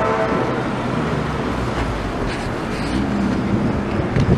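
Steady rumble of a passing vehicle, with an engine hum coming up about three seconds in and a few sharp clicks.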